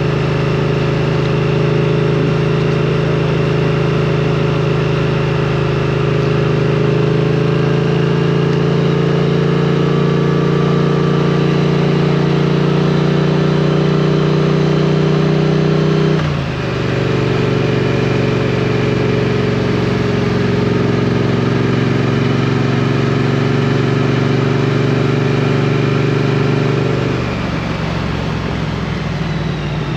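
2022 Triumph Street Twin's 900 cc parallel-twin engine running under way, its note holding steady and slowly climbing. About halfway through the pitch drops suddenly with a short dip in loudness, then holds steady again before falling away near the end.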